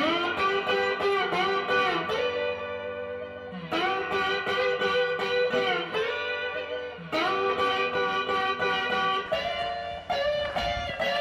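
Background music: an instrumental of plucked guitar, starting abruptly and playing repeating phrases.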